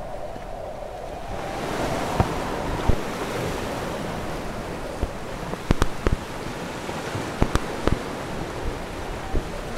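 Sea water lapping and wind buffeting the microphone on an outrigger canoe, the rush growing stronger about a second and a half in. A scatter of sharp knocks comes through in the second half.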